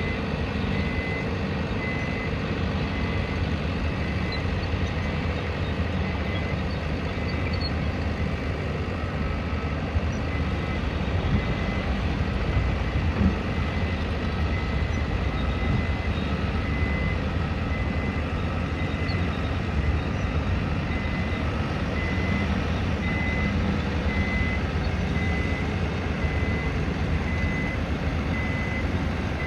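Reversing alarm on a construction vehicle beeping steadily, about once a second, over the continuous low rumble of heavy engines at a building construction site.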